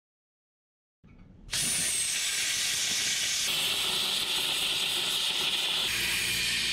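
Handheld plasma cutter cutting through sheet steel: a loud steady hiss of the arc and air that starts about a second and a half in and shifts slightly in tone as the cut goes on.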